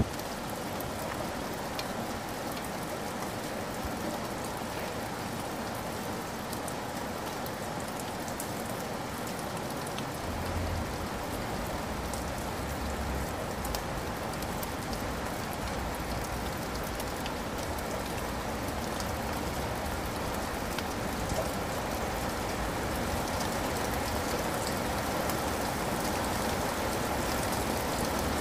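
Steady rain: an even hiss with many small drops ticking, growing a little louder near the end.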